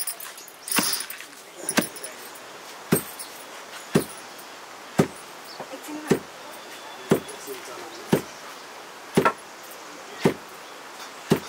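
Regular sharp knocks, about one a second, eleven in all, each stroke short and even.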